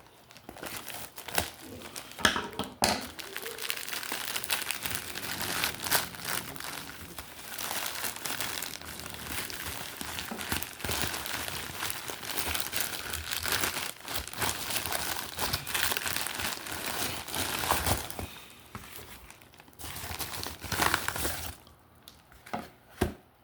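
Trading card pack's wrapper crinkling and tearing as it is opened by hand. The crinkling is dense for most of the time, then thins to a few scattered rustles near the end.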